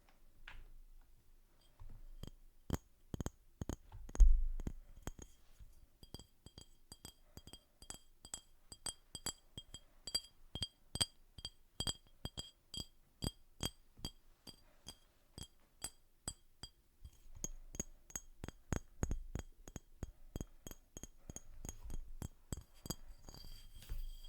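An ASMR tapping trigger: a steady run of light taps, about two to three a second, on a hard object that gives a short, high, clinking ring after each tap.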